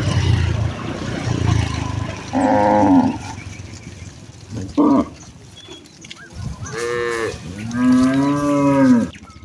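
Cattle mooing as the herd walks: a moo about two and a half seconds in, a brief call near the middle, then two more near the end, the last one long and lower.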